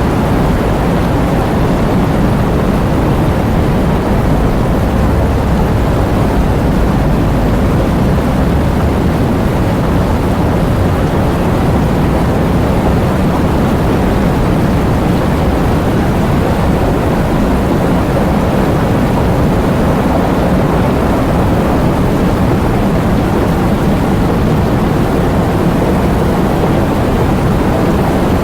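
Heavy rain falling steadily, a dense even sound weighted toward the low end.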